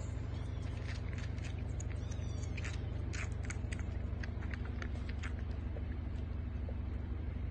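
A kitten suckling on a milk bottle's nipple, making quick wet smacking and clicking sounds, thickest in the middle, over a steady low rumble.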